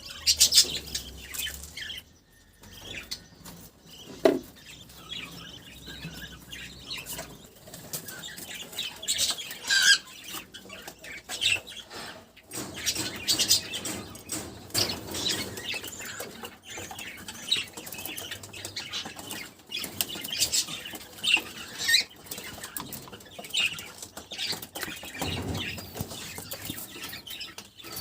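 Aviary budgerigars chirping on and off in short, high calls, with their wings flapping now and then.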